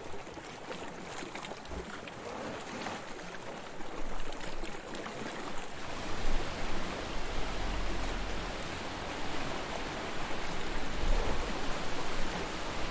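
Sea waves washing onto a shore: a steady rush of surf that swells and eases. About six seconds in it turns fuller, with a low rumble underneath.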